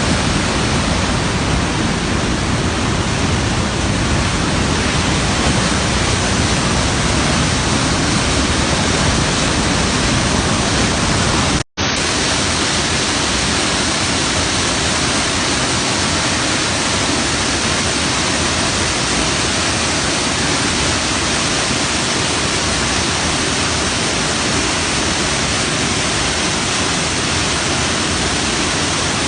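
Steady rush of a waterfall heard close up. Near the middle it cuts out for an instant, then carries on slightly less deep.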